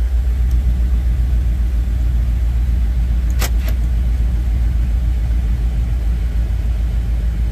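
Vehicle engine idling steadily with a low rumble. A short sharp click comes a little over three seconds in.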